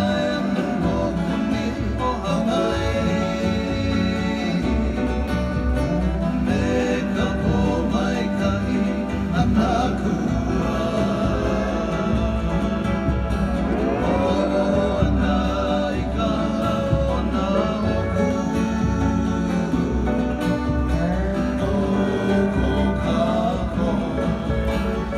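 Music accompanying a slow Polynesian dance: a voice sings a gliding melody over plucked guitar and a steady bass.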